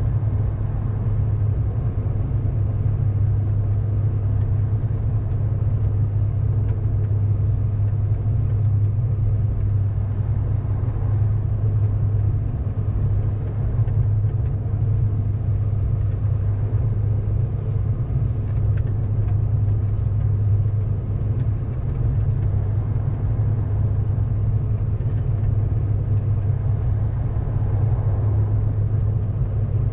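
Steady cockpit noise of a Dash 8 turboprop airliner on approach: a low, even propeller drone under a hiss of airflow, with a thin high whine that wavers slightly in pitch.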